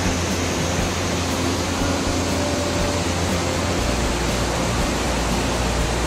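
Steady rushing of water falling down Kegon Falls, a 97-metre waterfall.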